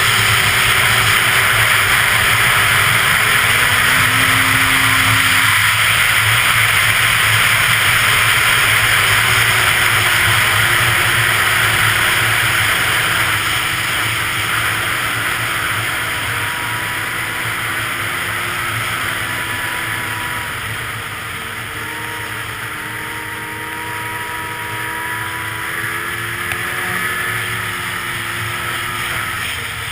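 Arctic Cat 800 snowmobile engine running under way, with a steady rush of wind and track noise over engine tones that drift slowly in pitch. The sound eases off from about halfway through.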